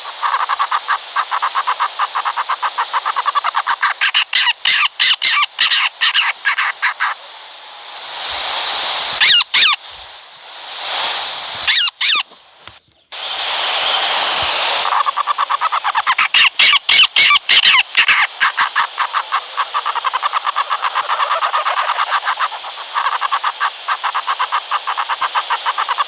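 Barn owl calls: fast rattling pulse trains, with several long, harsh hissing screeches in the middle and a brief break between them.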